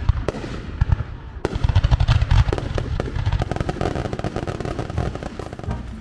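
Aerial fireworks shells bursting overhead. There are heavy booms at the start, and from about a second and a half in a dense, rapid run of sharp pops and crackles.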